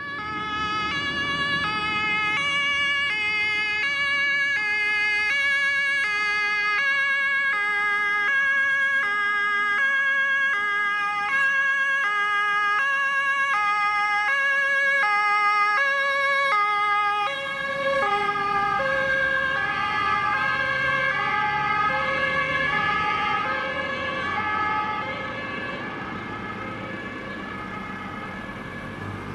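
German two-tone emergency siren (Martinshorn) on a fire brigade crew transport van, alternating evenly between a high and a low tone. About two-thirds of the way through the pitch drops slightly as the van passes and its engine and tyre noise come in under the siren, then it slowly fades.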